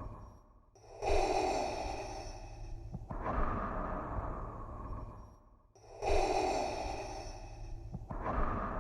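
Darth Vader's mechanical respirator breathing: a slow, hissing breath drawn in and pushed out, repeated twice, with a short pause between cycles.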